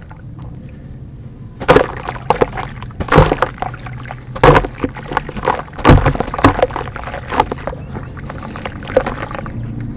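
Chunks of dirt being crumbled, crunching and crackling, mixed with wet pouring and sloshing sounds. The crunching starts about two seconds in and comes in a string of sharper crunches with small crackles in between.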